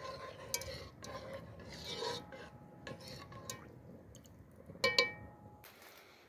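A fork beating egg in a metal cooking pot, scraping and lightly clicking against the pot. About five seconds in, a sharp metal clink rings briefly.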